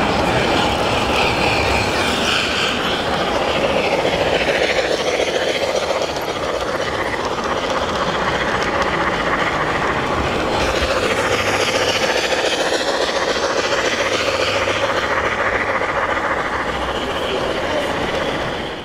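LGB-scale (1:22.5) model trains running on the layout's track: a steady rolling rattle of wheels on rail, with faint high squealing glides.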